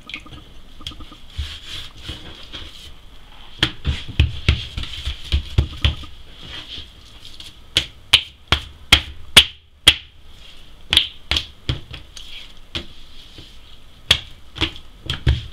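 Hands patting and slapping thin msemen dough against a wooden tabletop: a run of sharp slaps with duller thumps, quickest and loudest about eight to ten seconds in.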